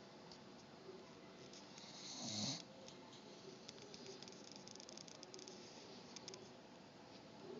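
Beagle snoring while awake: one loud snore about two seconds in, then faint clicking.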